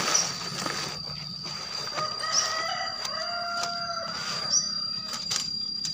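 A rooster crowing once, a long call of about two seconds that starts about two seconds in. Around it comes the rustle of a tent's tarpaulin fabric being pulled out and spread on the ground. A steady high whine and short high chirps repeating every couple of seconds run underneath.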